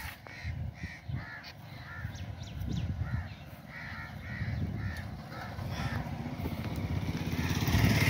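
Harsh bird calls, short and repeated roughly twice a second. A motorcycle engine grows louder near the end as it approaches.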